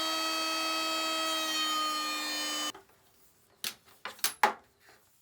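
Woodworking power tool running with a steady high whine and hiss, cutting off abruptly about two and a half seconds in, followed by a few sharp knocks.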